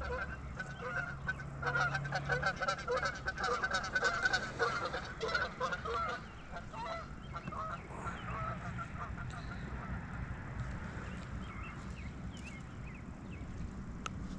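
Geese honking, many calls overlapping during the first half, then thinning out after about six seconds.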